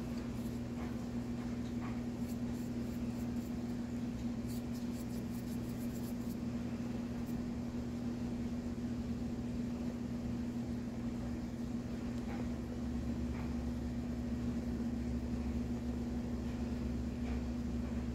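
Steady machine hum, one even tone over a low rumble, like a fan or room appliance running, with a few faint light ticks from the work on the table.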